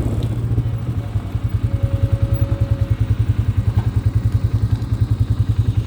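Quad (ATV) engine running at low speed, a steady low note with a rapid, even pulse.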